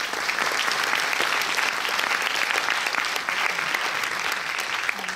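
Audience applauding: dense, steady clapping from a full cinema hall.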